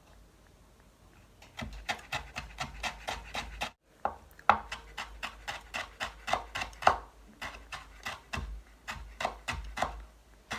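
Kitchen knife rapidly chopping on a cutting board, about four or five quick strokes a second, mincing lemon zest fine. The chopping starts about a second and a half in and breaks off briefly once.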